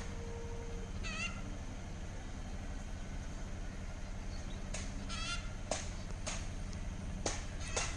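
Birds giving two short, wavering calls, about a second in and again around five seconds in, over a steady low hum, with several sharp clicks in the second half.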